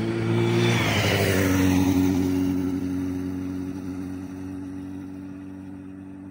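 Motorcycle passing close by about a second in, its engine note dropping in pitch as it goes past, then fading steadily as it rides away.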